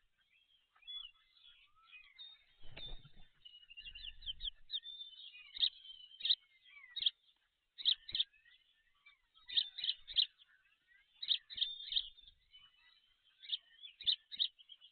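Birds chirping and calling in clusters of short, sharp high notes, with two brief low rumbles about three and four seconds in.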